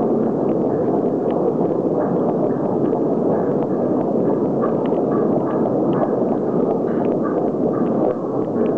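Steady, dense low noise filling a large hall, like a continuous rumble, with faint light ticks scattered over it.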